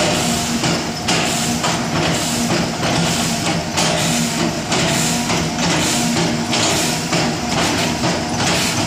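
Cat 320 hydraulic excavator's diesel engine running as it works the bucket into oil palm stumps, with background music with a steady beat mixed over it.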